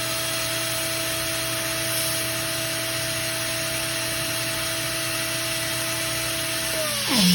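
Small electric seawater pump for a boat's air conditioner running with a steady whine and hum, then switched off and winding down near the end, its pitch falling.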